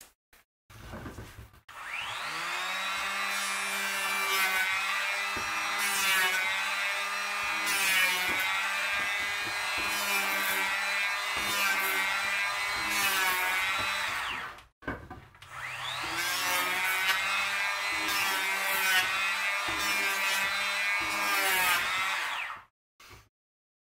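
Handheld electric planer run twice, spinning up and winding down each time. While it runs its whine dips under load every couple of seconds as it is pushed along a wooden board in repeated cutting passes.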